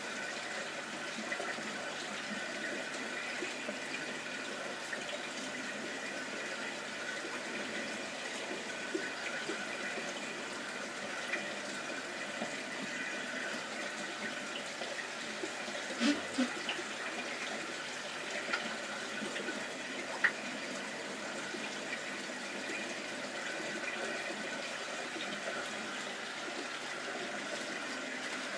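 Aquarium air-lift box filters bubbling steadily, streams of air bubbles breaking at the water surface, with a few small sharp knocks around the middle.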